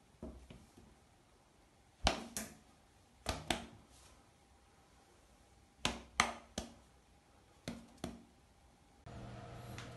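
Bengal cat batting at a person's hand with its front paws: sharp slaps in quick pairs and threes, four groups spread over several seconds.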